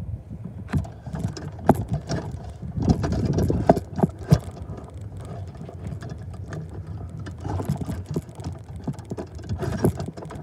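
Freight cars of a manifest train rolling past: a low rumble of steel wheels on rail with irregular sharp clanks and knocks, busiest a few seconds in.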